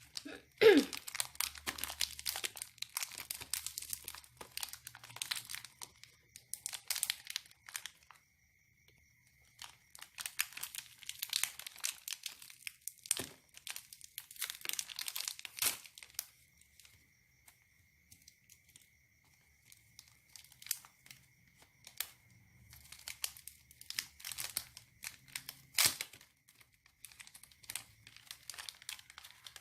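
Plastic wrapper of a Nabati wafer packet crinkling and tearing as it is opened and handled, in several spells of crackling with quiet pauses between.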